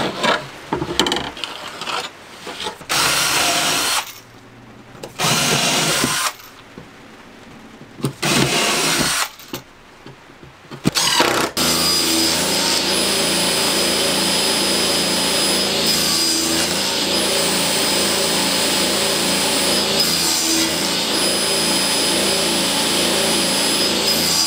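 Cordless drill driving screws in several short bursts with pauses between them. About halfway through, a table saw starts running steadily, cutting plywood pieces.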